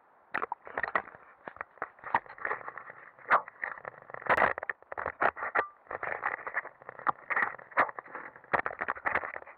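A hand handling a GoPro camera on its bonnet mount: irregular knocks, taps and scrapes.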